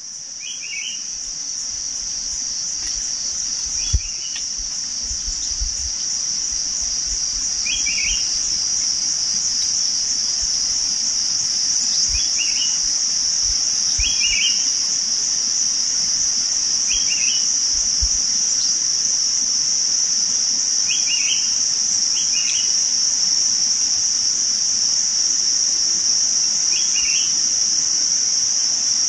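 Steady high-pitched insect drone that swells louder over the first several seconds, with short faint chirps every few seconds.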